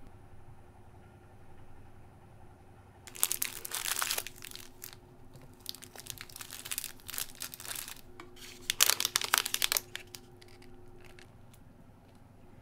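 Plastic-wrapped amenity packets being handled, crinkling and rustling in three bouts of a second or two each. The last bout is the loudest.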